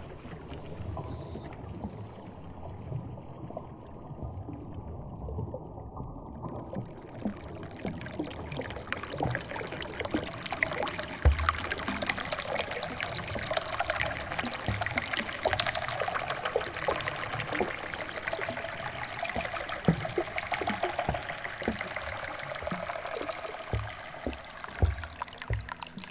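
Water of a rocky stream trickling and splashing in a steady rush of many small splashes. It is muffled for the first six seconds or so, then opens up bright and clear.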